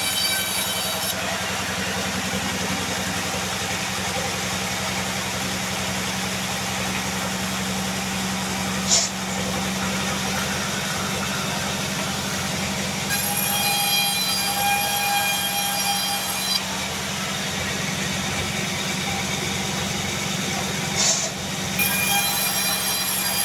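Band sawmill running with a steady low hum while its blade cuts through a Bayur log. A high whine comes in over the hum for a few seconds just past halfway, and again near the end. Two sharp knocks, one before the first whine and one before the second.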